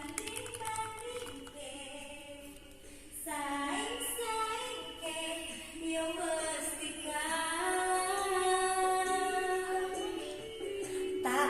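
Music with a woman singing a melody.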